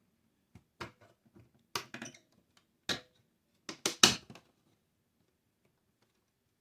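A series of sharp clicks and knocks as the boiler's controller module circuit board is slid back into its housing and fitted together, with the loudest in a quick cluster of three about four seconds in.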